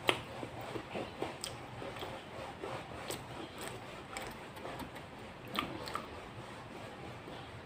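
A person chewing and eating soft boiled cassava, with small mouth clicks scattered through.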